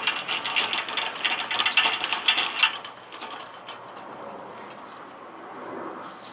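Rapid mechanical clicking rattle, a dense run of clicks that stops abruptly about two and a half seconds in, followed by a quieter steady background.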